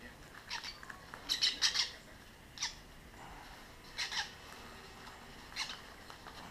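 Hand-reared lovebird chicks giving short, high squawking calls, about six in all, spaced a second or so apart, the loudest a quick run of them about a second and a half in.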